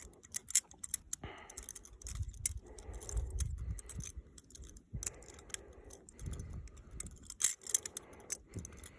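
Balisong (butterfly knife) being flipped: irregular sharp metallic clicks and clacks as the handles and blade swing around and knock together.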